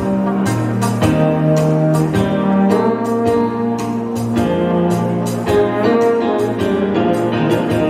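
Live dance music from a keyboard and a trombone: the trombone holds sustained melody notes over keyboard chords, a bass line and a steady beat.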